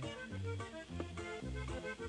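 Norteño-style background music: a bass alternating between a low and a higher note on a steady two-beat rhythm, with an accordion-like melody above.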